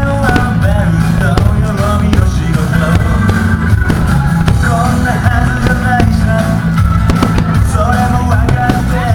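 Rock-style music with a singing voice over drums and bass.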